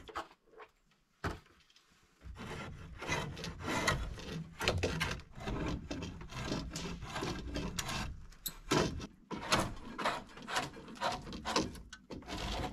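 A knife blade drawn along a wooden roof pole in quick, irregular scraping strokes, shaving the wood. The strokes begin about two seconds in, after a near-quiet start.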